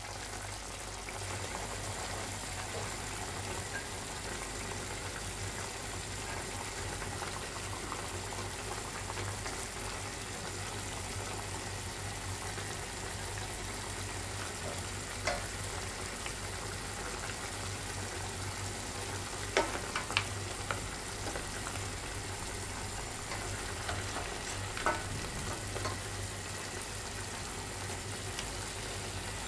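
Pork ribs bubbling and sizzling steadily in their reducing braising liquid in a stainless steel pot. A few sharp clicks of tongs against the ribs and pot are heard while the ribs are turned, the loudest about two-thirds of the way through.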